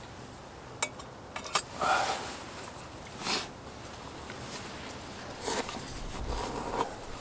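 Cup ramen and its paper-and-plastic packaging being handled by hand: a few sharp clicks, then several short crinkles and rustles, the loudest about two seconds in.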